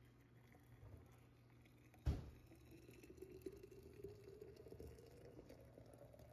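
Hot drink poured in a steady stream from a stainless steel pot into a thermos flask, the pitch of the pour rising slowly as the flask fills. A sharp knock about two seconds in.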